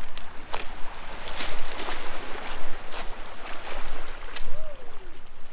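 Footsteps crunching over beach pebbles, with small waves washing onto the stony shore. A short falling tone sounds near the end.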